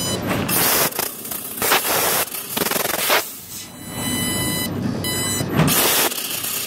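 Fiber laser cutting machine working thin steel sheet: hissing spurts of assist gas as the head pierces and cuts, between them the high whine of the axis drives as the head moves to the next cut.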